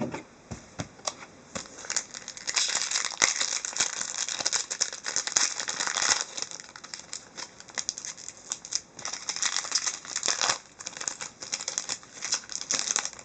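Wrapper of an SP hockey card pack crinkling at length as it is handled and torn open, an irregular crackle.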